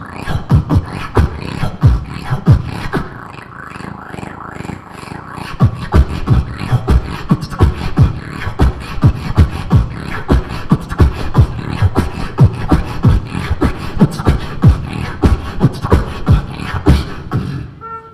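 Solo beatboxing into a handheld microphone cupped in both hands: a fast groove of mouth-made bass kicks, snares and hi-hat clicks. It eases into a quieter, sparser passage a few seconds in, then drives on with regular heavy kick beats about two or three a second, and stops just before the end.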